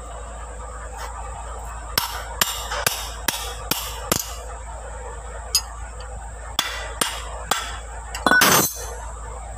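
Open-end wrench on the bolts of a Landini DT85 tractor's brake housing: a run of sharp metal clicks as the wrench is worked and reset on the bolt heads to loosen them, then a louder, longer metallic clatter near the end.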